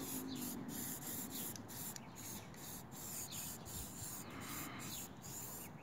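Faint, steady rubbing and scratching of a paintbrush working paint onto the metal flashing at a brick chimney.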